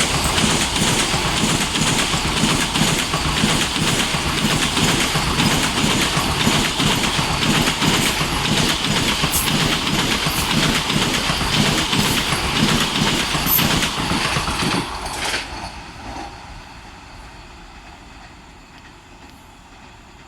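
Vande Bharat Express electric trainset passing at speed, its wheels clattering rapidly over the rail joints with a rushing noise. About fifteen seconds in the last coach goes by and the noise drops away quickly to a faint fading rumble.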